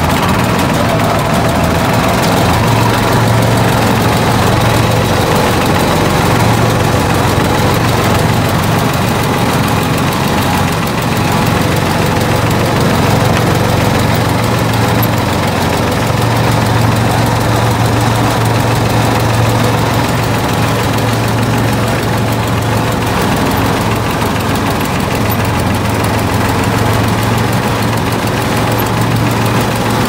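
Work boat's engine running steadily at close range while it drives a rope winch hauling a sunken car up from the seabed. Its low hum grows stronger and weaker in stretches of several seconds.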